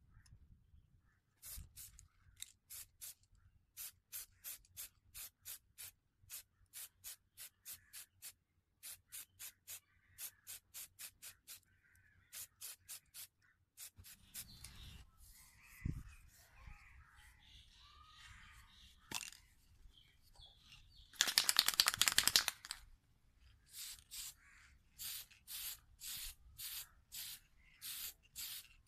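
Aerosol spray-paint can sprayed in quick short bursts, about three a second, with one longer, louder continuous spray about three quarters of the way through, as the chisel handle is given a coat of grey primer.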